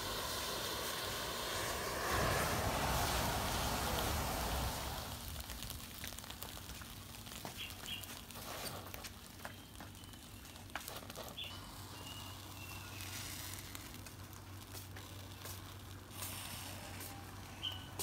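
A mass of safety matches catching fire together: a rushing whoosh of flame for the first few seconds, loudest about two to four seconds in. It then dies down to a quieter burn with scattered crackles and pops.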